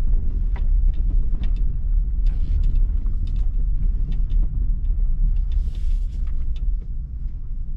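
A car driving slowly over a gravel lot, heard from inside the cabin: a steady low road rumble with scattered clicks of stones under the tyres.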